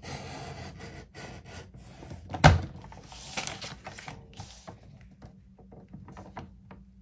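Sliding paper trimmer cutting cardstock: the cutter head scraping along its rail in scratchy strokes, with one sharp knock about two and a half seconds in as the paper and trimmer are handled.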